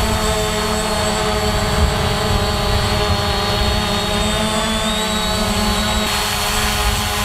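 SG906 quadcopter drone hovering, its motors and propellers giving a steady high whine whose pitch wavers slightly about two thirds of the way in, under heavy low buffeting of wind on the microphone.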